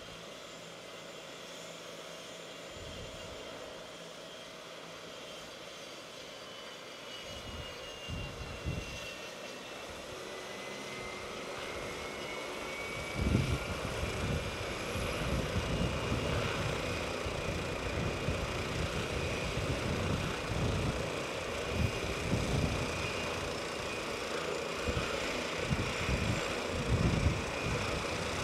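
Helicopter on the ground with its rotor turning, turbine engines running with a high whine that rises in pitch and grows louder through the middle of the stretch. From about eight seconds in, rotor wash gusts buffet the microphone with irregular low thumps.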